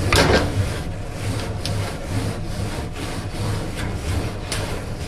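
Long condenser coil cleaning brush being worked in and out of a refrigerator's dusty condenser coil, a repeated scraping, rubbing stroke.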